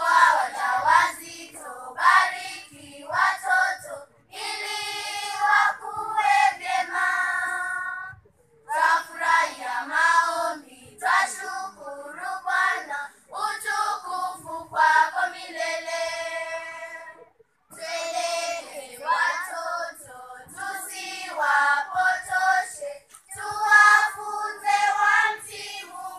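Children's choir singing unaccompanied, in phrases of a few seconds with short breaths between them.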